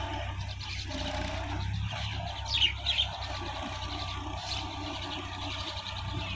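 Diesel tractor engine running steadily as it drives a rotary tiller through a flooded paddy field. Two quick falling bird chirps stand out a little before halfway.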